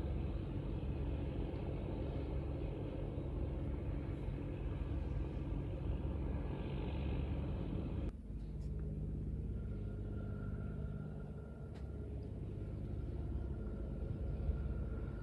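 Low, steady engine rumble. About eight seconds in it changes abruptly and becomes slightly quieter, with a faint steady whine above it.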